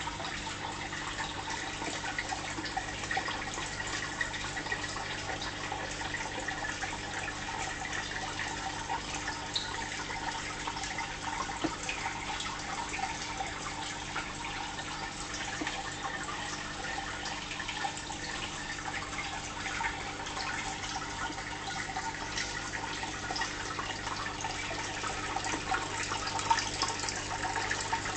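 Fish tank water circulating: a steady trickling and bubbling with many small drips and pops, over a steady low hum from the tank's equipment.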